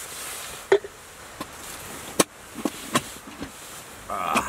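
Campfire crackling: about six sharp, irregular pops over a faint steady hiss, with a louder rush of noise near the end.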